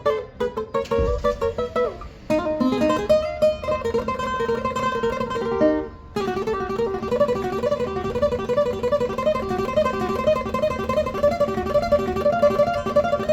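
A requinto, the small high-pitched guitar, played solo with quick plucked melody runs. The playing stops briefly just before six seconds in, then carries on with fast repeated notes.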